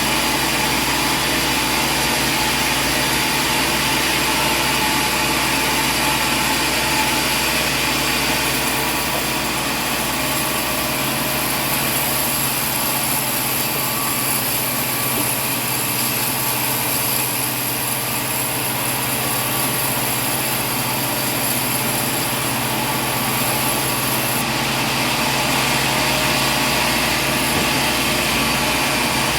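Sawmill machinery running steadily, with a hum and a high whine that comes in about a quarter of the way through and drops away near the end.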